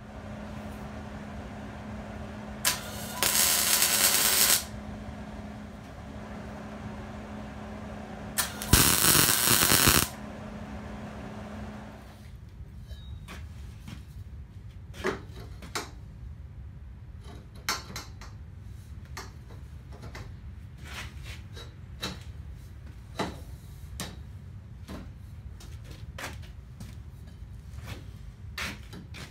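Workshop sounds: two loud hissing bursts lasting about two seconds and one second over a steady low hum, which stops about twelve seconds in. After that come scattered light clicks and knocks of steel roll-cage tubing being handled and fitted to a buggy frame.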